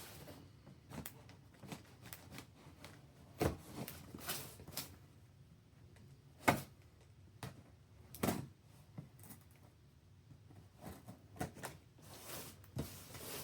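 A cardboard package being opened and handled on a desk: irregular knocks, scrapes and rustling of box and packing, with three sharper knocks standing out about a third, halfway and two-thirds of the way through.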